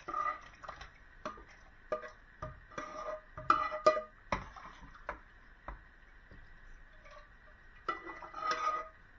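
Spatula scraping and knocking against a frying pan as a thick tomato-and-onion sauce is pushed off it into a stainless steel pot of broth: irregular scrapes and taps, some leaving a brief metallic ring. The busiest, loudest stretch comes about three and a half to four seconds in, with another cluster near the end.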